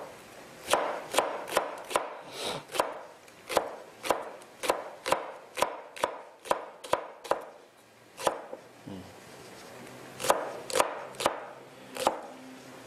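Kitchen knife slicing a Korean leek (daepa) into rounds on a wooden cutting board: sharp knocks about two a second, a pause of about two seconds, then a few more cuts.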